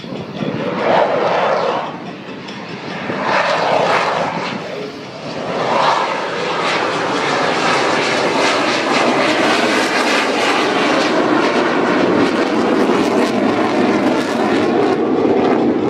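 Jet engine of a Thunderbirds F-16 fighter making a low pass: a loud roar that swells three times in the first six seconds, then holds steady.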